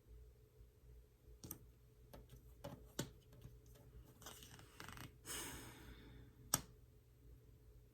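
Tarot cards being handled on a table: a scatter of light clicks and taps, a short swishing slide of card on card, and one sharper tap near the end.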